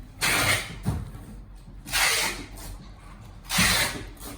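Packaging being handled: three rustling, rubbing swishes about a second and a half apart, with a light knock between the first two.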